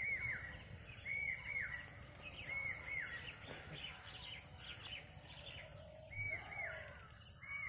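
Outdoor ambience with a bird calling over and over: a short phrase of two or three arched notes, repeated about every second and a quarter, pausing in the middle while other birds chirp, then starting again near the end. A steady high hiss runs underneath.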